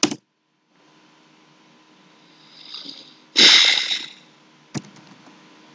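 A loud sniff close to the microphone, a short noisy rush of breath, followed about a second later by a single sharp click.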